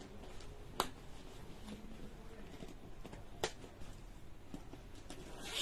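Faint handling of a leather bag as its compartments are closed, with two sharp clicks, the first about a second in and the second a few seconds later, and a short rasp near the end.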